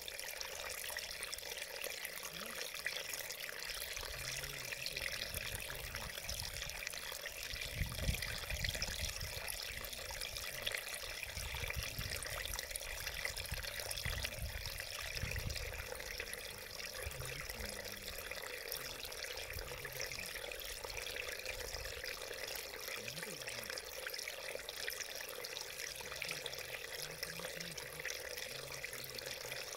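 Shallow mountain stream running over rocks close by: a steady rush of trickling water, with some low rumbling mixed in between about 7 and 16 seconds in.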